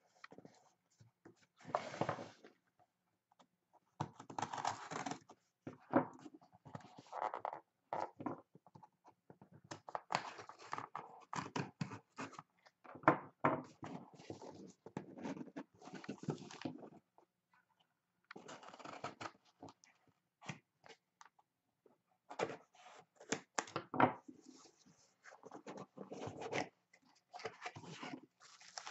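Small cardboard shipping box being torn open by hand: tape and cardboard tearing, scraping and crinkling in irregular bursts with short pauses.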